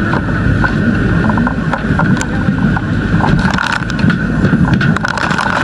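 Steady, loud engine-like drone with many short knocks and clatter scattered through it.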